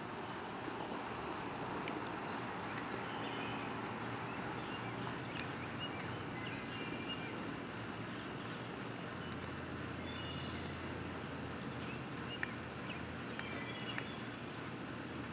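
Steady outdoor vehicle rumble from receding traffic, with a few short bird chirps and sharp clicks; a low steady engine hum comes in about nine seconds in.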